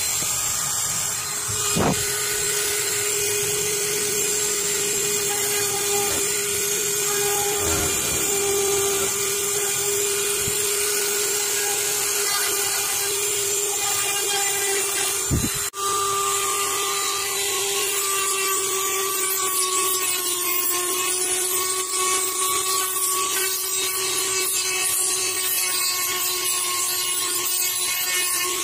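Handheld rotary tool's small high-speed motor running with a steady whine, its bit grinding and shaping PVC pipe plastic. There is a brief dip about halfway through.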